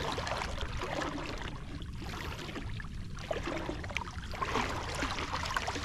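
Water sloshing and splashing around a person wading waist-deep while hauling a crab lift net up by its line, with a steady low rumble underneath.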